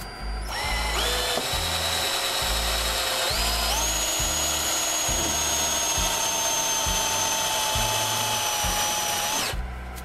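Electric drill boring a hole into a wooden board: the motor whine rises as it spins up about half a second in, steps up again at about three and a half seconds, holds steady, and stops suddenly just before the end.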